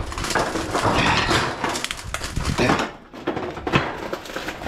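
Engine hoist loaded with an engine, pushed across corrugated metal roofing sheets: its casters scrape and rumble over the sheet metal, with irregular knocks and rattles.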